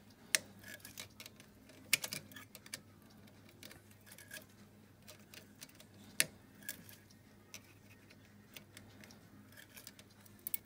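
Scattered small metallic clicks and taps of needle-nose pliers working the rocker-arm adjuster screw of a 125 cc ATV engine, turning it down onto a feeler gauge to set the valve clearance. A few sharper clicks stand out about a third of a second, two seconds and six seconds in.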